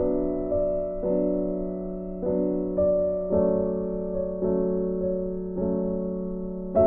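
Background piano music: soft chords struck roughly once a second, each fading away before the next.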